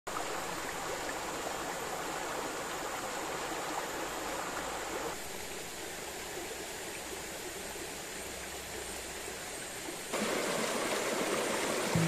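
Shallow forest stream running over rocks: a steady rush of water. It turns quieter suddenly about five seconds in and louder again about ten seconds in.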